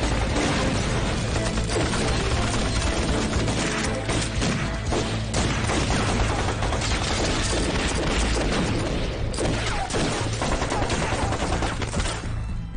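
Staged movie gunfight: dense submachine-gun and rifle fire with blasts, over a dramatic music score. The shooting stops near the end, leaving the music.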